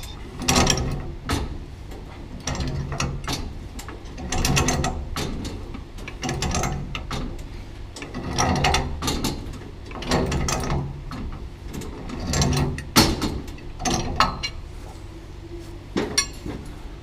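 Heavy Ridgid steel pipe wrench turning a threaded steel sprinkler pipe fitting: a string of rough, ratchety clicking and scraping strokes roughly every second or two as the wrench is pulled and its jaws reset on the pipe.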